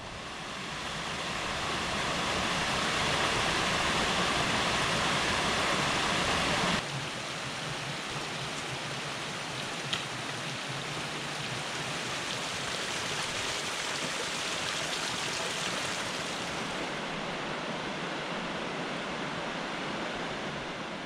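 Steady rush of a mountain stream's flowing water, louder for the first seven seconds, then cutting suddenly to a somewhat quieter, even rush.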